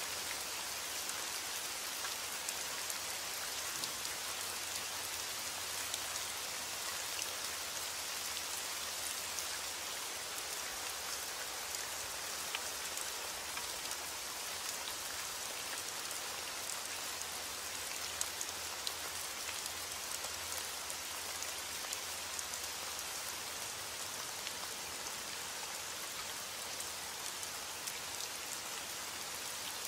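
Steady rain: an even, constant hiss with scattered faint ticks of single drops.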